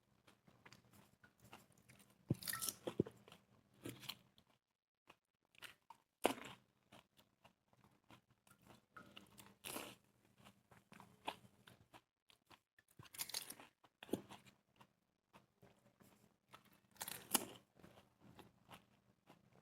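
Close-up crunching and chewing as crisp golgappe (pani puri shells) are bitten into one after another, a loud crunch every three or four seconds with quieter chewing in between.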